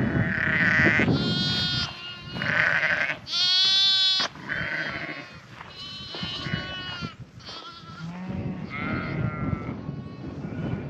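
Flock of Dorset lambs and ewes bleating: a run of overlapping calls in different voices, one after another, with the loudest about four seconds in.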